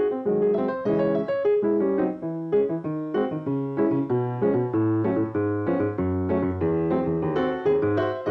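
Grand piano played solo: a brisk melody of quickly struck notes and chords, with deeper bass notes joining about halfway through.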